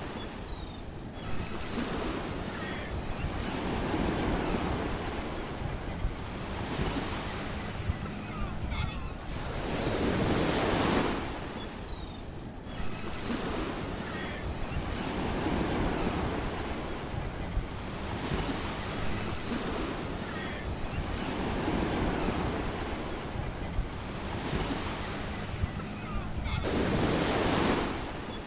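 Sea waves breaking on a rocky shore, the wash swelling into a louder surge every few seconds, with wind buffeting the microphone.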